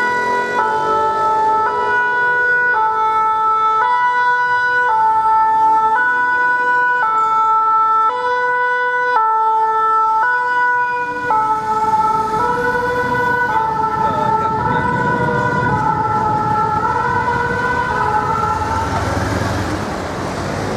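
Paris Fire Brigade rescue truck's two-tone siren, alternating steadily between a high and a low note. From about halfway through, the truck's engine and tyre noise grows beneath the siren as the truck passes close.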